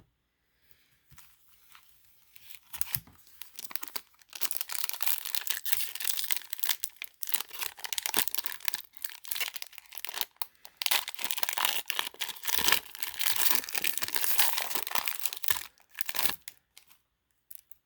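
A foil Magic: The Gathering Jumpstart booster pack being torn open, its wrapper crinkling and crackling. The sound is sparse at first, dense for most of the stretch, and stops shortly before the end.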